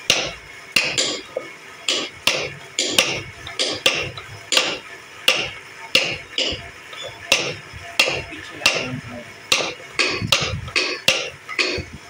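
Wooden mallet tapping a carving chisel into a turned wooden bowl, sharp knocks at about two a second in an uneven, ongoing rhythm.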